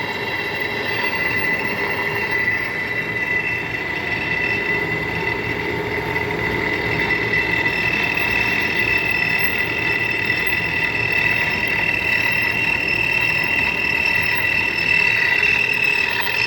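Lathe running while turning a job, with several steady high-pitched tones over a constant mechanical noise, a little louder near the end.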